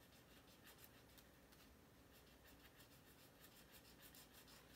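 Faint scratching of a fine-tip marker drawing a run of short, quick strokes on watercolor paper.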